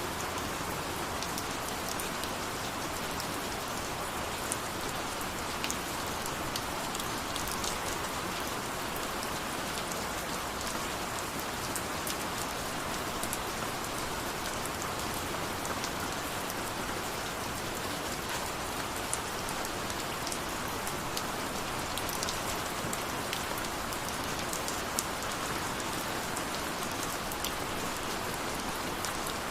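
Steady rain falling, an even hiss with many scattered drop ticks on a surface.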